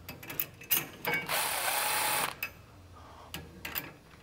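Power ratchet running a nut down a U-bolt on a truck's rear helper spring, one burst of about a second after a few light metallic clicks. The nut is being snugged just enough to set a light preload on the helper spring.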